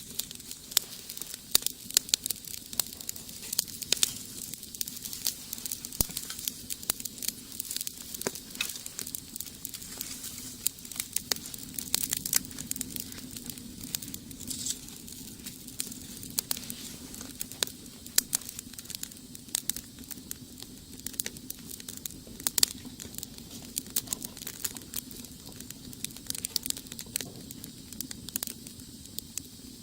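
Wood fire crackling in a rocket stove, with frequent irregular sharp pops and snaps over a steady low hum.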